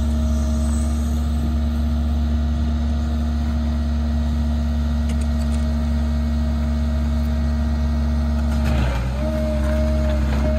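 Large diesel engine of heavy farm equipment running at a steady speed, with a brief dip and waver in the engine note about nine seconds in.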